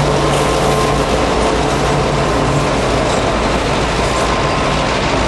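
Three diesel-electric freight locomotives passing close by, their engines running with a steady, loud drone.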